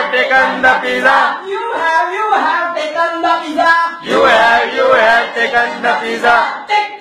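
A song being sung, with male and female singing voices.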